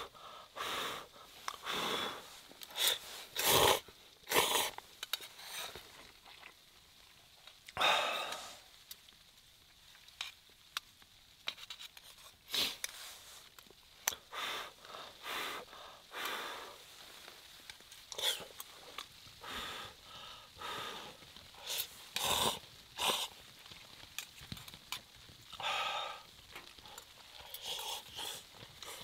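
A person repeatedly blowing on and slurping hot noodles in short breathy bursts, with now and then a sharp click of a metal utensil against the metal cook pot.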